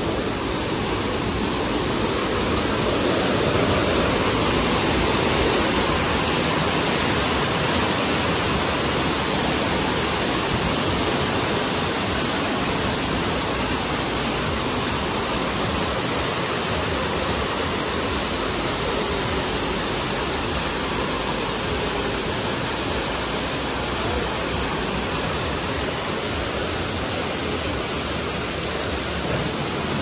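Steady, even rush of falling water, as from a waterfall.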